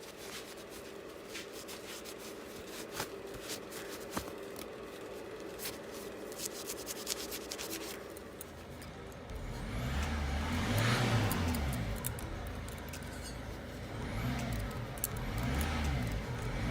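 Scattered metallic clicks and scraping, then from about nine seconds in a motor that speeds up and slows down twice.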